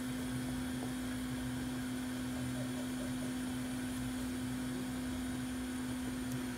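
Steady electrical hum on one low tone over a faint even hiss, from running workbench equipment.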